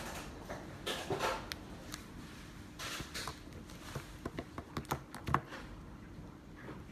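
Handling noise of iPhones being laid down and arranged on a table: light knocks and rustles, then a quick run of small clicks and taps of phones and fingers against the table and the glass about four to five seconds in.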